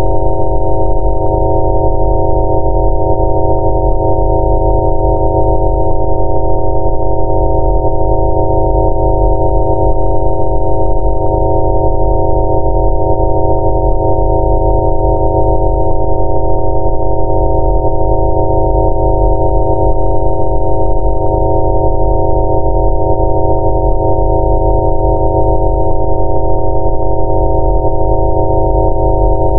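Several steady synthesized sine tones sounding together, unchanging and loud, with a low droning layer beneath: a 'Rife frequency' tone track meant for skin problems.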